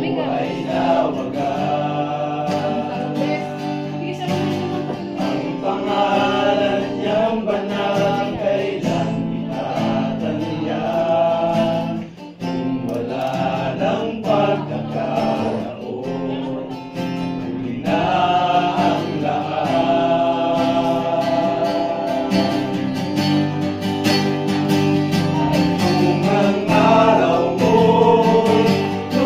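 A group of men singing a Christian worship song together over a steady instrumental accompaniment, with a short break about twelve seconds in.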